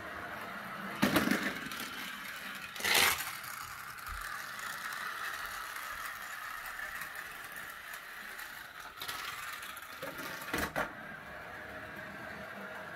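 Magic Tracks battery-powered toy car's small motor whirring steadily as it runs along the plastic track, with a few sharp knocks and clatters, the loudest about three seconds in and another near the end.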